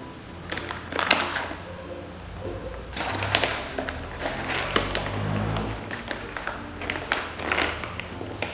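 Crinkling and rustling of a plastic flour bag as a measuring cup is dug into the flour, in several uneven bursts of scraping and crackling.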